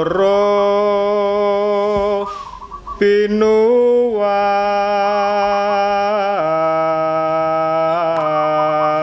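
Solo voice singing a Javanese kidung (tembang) in long, slowly held notes on the syllables of "roro". There is a short breath break about two seconds in, a brief higher note near four seconds, and a step down in pitch a little after six seconds.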